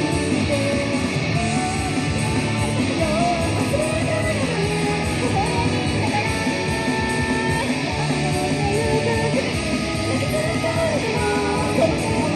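Rock band playing live: electric guitars and drums in a dense, steady wash, with a wavering melody line over them.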